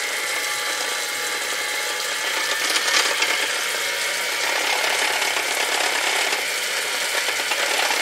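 Black+Decker electric hand mixer running steadily, its beater whirring and rattling in a ceramic bowl of pancake batter, with a tap running into a steel sink behind it.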